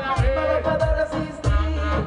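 Reggaeton performed live through a PA: a backing track with a heavy, regular bass beat under a male voice singing into a microphone.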